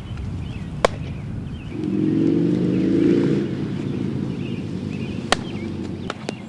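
Two sharp smacks of a baseball during infield throws, one about a second in and another near five seconds, over birds chirping. A low droning hum swells between about two and three and a half seconds and is the loudest part.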